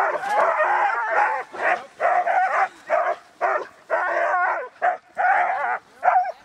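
A team of harnessed sled dogs barking, yelping and whining over one another, eager to run at the start of a dogsled trip. The calls waver in pitch and come in quick bursts about twice a second.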